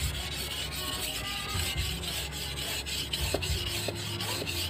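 A steel golok blade being sharpened on a wet whetstone: quick, even back-and-forth strokes of steel scraping over stone, several a second.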